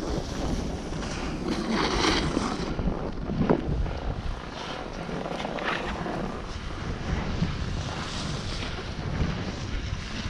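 Wind buffeting the microphone of a skier's action camera during a downhill run, with the hiss and scrape of skis sliding on packed, groomed snow that swells briefly about two seconds in and again near the middle.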